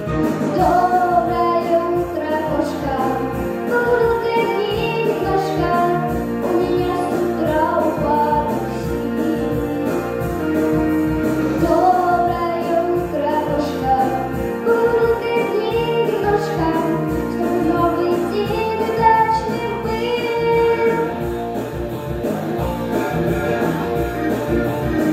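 A young girl singing a children's song into a microphone over recorded backing music with a steady beat.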